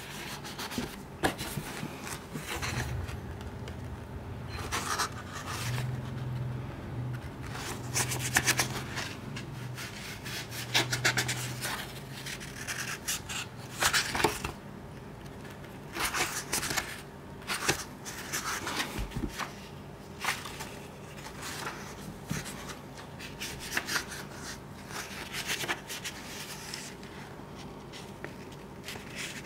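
Pages of a thick paperback manga omnibus being turned and handled with cloth gloves: irregular paper rustles, flicks and soft rubbing, some crisp and sharp.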